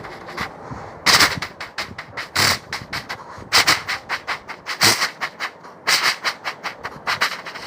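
A man's mouth-made imitation of coal-fired steam trains: fast, even chuffs and clicks with louder hissing bursts about every second, the effect of one train passing another going the opposite way.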